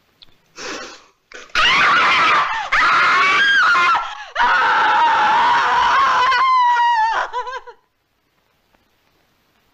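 A woman screaming: a short cry, then two long, high screams, the second held on one pitch and wavering as it breaks off.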